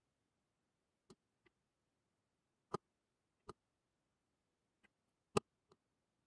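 Faint, sharp clicks, about seven at irregular intervals, two of them louder, a little under 3 s and about 5.5 s in.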